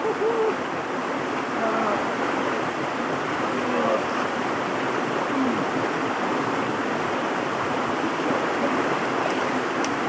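Steady rush of a shallow, rocky river running fast over rapids, swollen after rain, heard close to the water.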